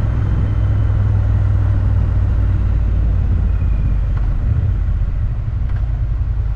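Motorcycle being ridden at a steady pace: the engine running under a constant low rumble of wind and road noise.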